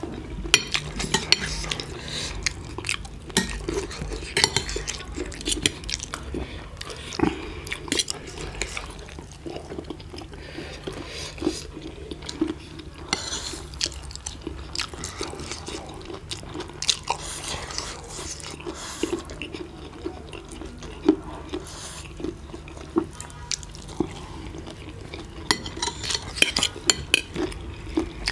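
Forks and spoons clinking and scraping on ceramic plates as two people eat noodles, with irregular clicks all the way through.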